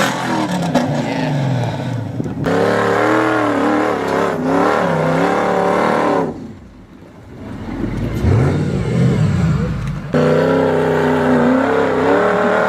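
Off-road 4x4 engines revving hard, pitch swinging up and down, in short segments that cut off abruptly. A quieter stretch of low engine rumble with a slow rise in pitch comes in the middle.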